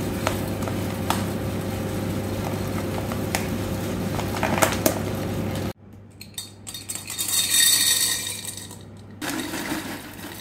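A steady hum with a few light clicks as muesli is poured from a bag into a glass jar; then, after a sudden cut a little past halfway, dry penne pasta pours and rattles into a glass jar, the loudest sound, rising to a peak and tailing off.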